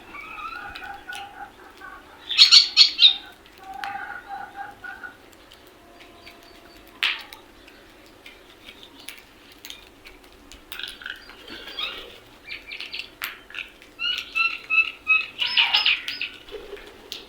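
A group of crows calling in bursts of quick repeated calls. The loudest bursts come about two seconds in and again near the end, with one sharp click in between.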